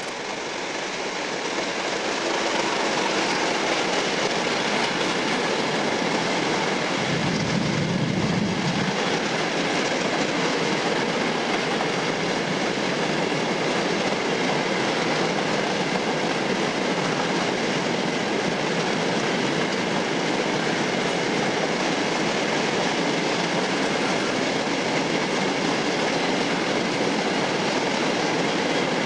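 A long rake of freight hopper wagons rolling past behind a diesel locomotive: steady wheel-on-rail noise with clickety-clack over the rail joints, and a brief low rumble about seven seconds in.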